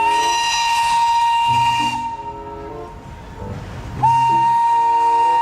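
Steam train whistle blowing two long, steady blasts, the second starting about four seconds in.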